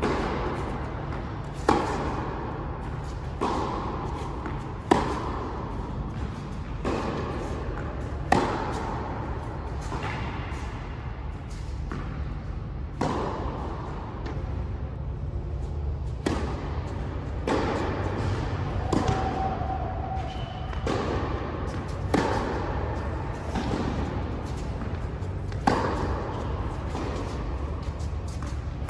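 Tennis rally on an indoor court: sharp racket-on-ball strikes and bounces about every one and a half to two seconds, echoing in a large hall, over a steady low hum.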